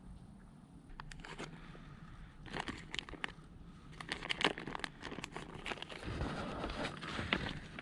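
Plastic packet of soft-plastic worms crinkling and rustling as it is handled, with irregular sharp clicks and crackles that grow denser near the end.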